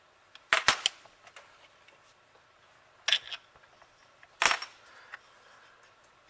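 Four sharp metallic snaps, two in quick succession about half a second in, one about three seconds in and a loud one about four and a half seconds in: the spring-loaded brushes of a 1948 Chevrolet Delco-Remy starter motor being released and snapping down onto the armature's commutator during reassembly.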